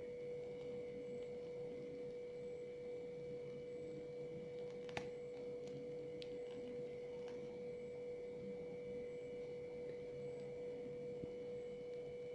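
A steady humming tone held at one mid pitch, like an electrical hum, with one faint click about five seconds in.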